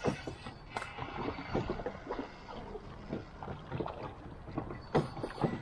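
Water splashing and irregular knocks and thumps around a river raft, with a louder knock at the start and another about five seconds in.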